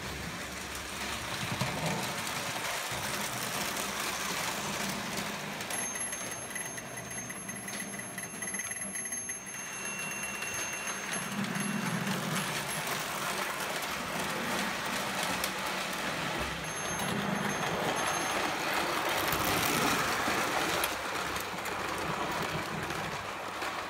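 Prewar Lionel O gauge tinplate train running on three-rail metal track: a steady rumble and rattle of wheels on the rails, a little louder near the end as the cars pass close.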